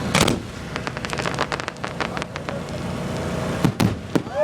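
Fireworks going off at close range: a bang, then a quick run of sharp crackles, then more bangs near the end, over a steady low rumble.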